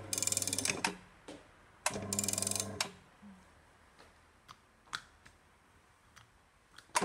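Fujihan TM-1 electric crimping assist machine running: its motor drives a rack and pinion that works the handles of a mounted hand crimping tool. It makes a steady hum with rapid clicking, in two runs of about a second each, then a few separate light clicks, and another run starts at the very end.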